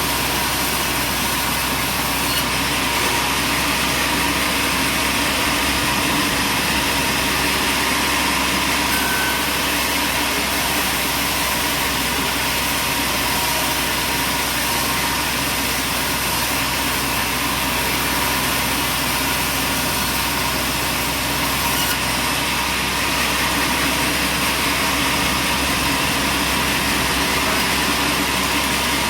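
Machinery running steadily with an engine-like drone, with no clear changes or impacts.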